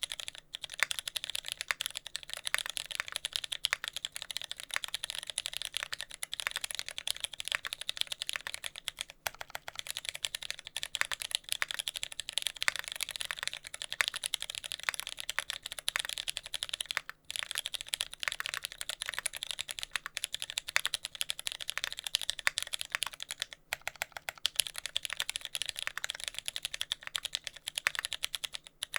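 Fast, continuous typing on a TX65 mechanical keyboard with a brass plate, lubed Cherry MX Brown tactile switches, GMK keycaps and no sound dampening: a dense run of keystroke clicks, pausing briefly about three times. The switches' tactile legs are left unlubed, which adds a faint contact-leaf-like scratch to the keystrokes.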